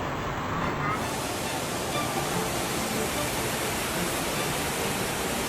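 Floodwater gushing and pouring in a steady, loud rush of water.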